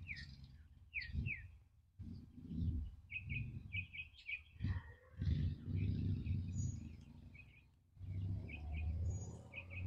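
Small birds chirping: a few short downward-sliding chirps, then quick runs of repeated high notes, over a low rumble.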